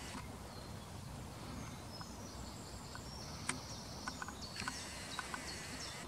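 Quiet woodland ambience: faint high bird chirps and short whistles, more of them in the second half, with a few light ticks and crunches of footsteps on the dry dirt path.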